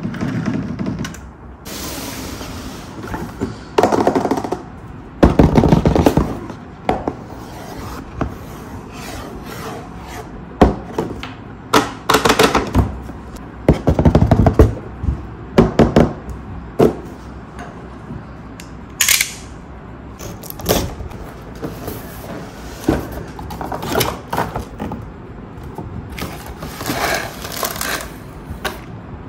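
Plastic toy track pieces and packaging being handled: irregular clicks, knocks and scrapes, with several louder clusters of knocks.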